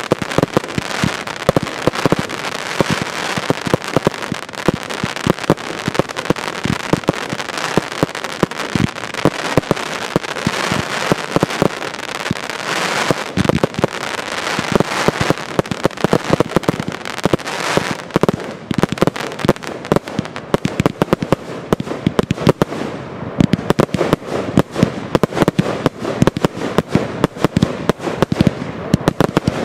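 Fireworks display: a sustained barrage of launches and bursts, many sharp reports a second over a continuous crackle.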